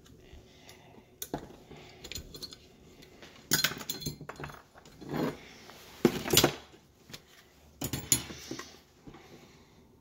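Metal screws and a screwdriver clinking, and the plastic housing of a mobility scooter joystick controller clattering as it is taken apart. A few sharp clinks and rattles come at irregular moments, the loudest about six seconds in.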